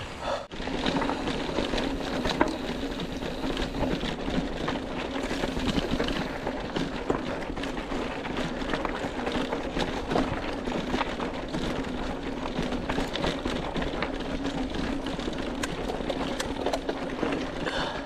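Bicycle rolling over a rough trail: tyre noise with many small clatters and rattles, over a steady hum.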